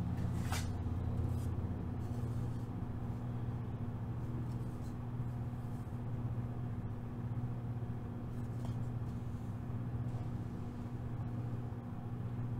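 Steady low hum with a constant pitch, with one sharp click about half a second in and a few faint soft rustles.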